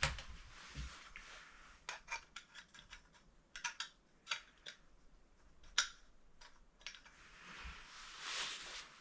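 A run of sharp, irregular clicks and light taps, with a brief rustling scrape near the end.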